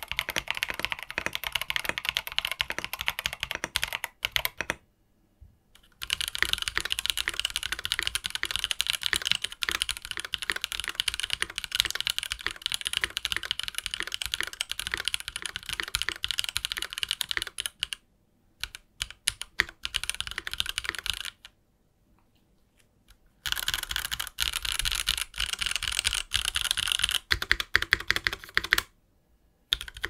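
Steady fast typing on a Melgeek Mojo68 gasket-mounted mechanical keyboard. It is heard first with TTC Speed Silver linear switches, MG keycaps and no silicone dampener, then with Cherry-profile keycaps and a silicone dampener. The typing breaks off for a second or two a few times as one take gives way to the next.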